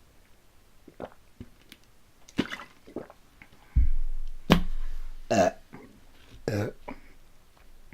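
A person burping several times in the second half, between soft mouth clicks from eating.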